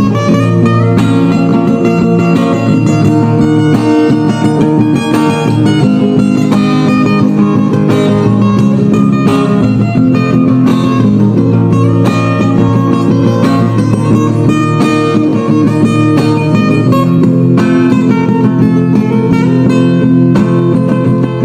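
Fingerpicked guitar music in the northern Kulisusu style: a plucked melody line played over a guitar accompaniment in steady time, with no pause.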